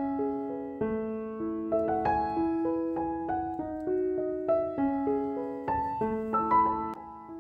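Background piano music: a melody of struck notes, one after another, each ringing briefly before the next.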